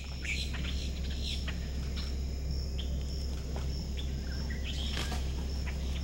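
Scattered short bird chirps over a constant, high-pitched insect trill, with a low hum underneath.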